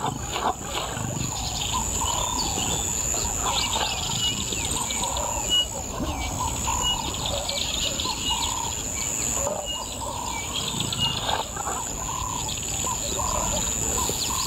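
Bush ambience: birds chirping and calling over and over in short notes, with a steady high insect drone.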